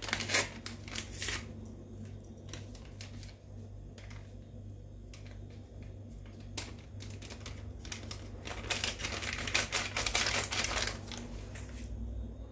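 Crinkling and rustling of a small baking-powder sachet as it is opened and emptied into a bowl of flour and cocoa: a dense run of crackling about a second in, scattered clicks, then a longer spell of crinkling from about eight to eleven seconds.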